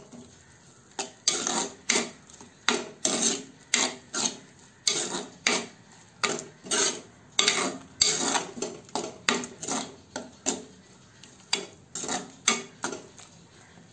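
A steel spoon scraping and stirring a thick ground-coconut mixture in an earthenware clay pot: a quick run of scraping strokes, about two a second, that stops shortly before the end.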